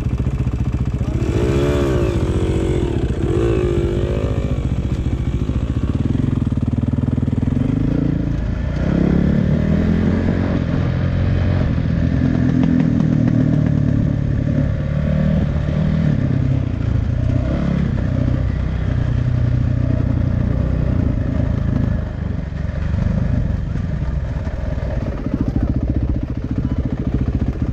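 1981 Kawasaki KE175 motorcycle's single-cylinder two-stroke engine running, its pitch rising and falling with the throttle.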